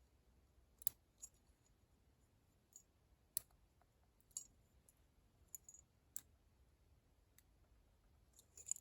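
Lishi 2-in-1 pick working the pins of a Master Lock No. 1 padlock: small, sharp metallic clicks, about ten of them at irregular intervals.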